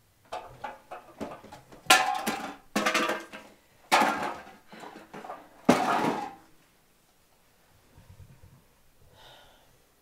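Household items being handled roughly: a series of loud rustling and clattering bursts over about six seconds, then only faint shuffling.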